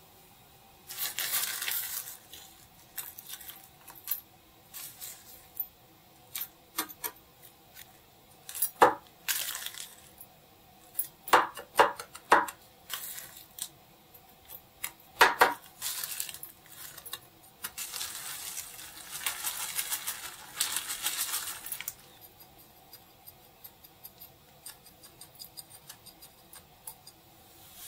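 Kitchen utensils and dishes being handled: a series of sharp clinks and knocks, the loudest a few in the middle, with stretches of rustling noise, the longest a few seconds after the middle.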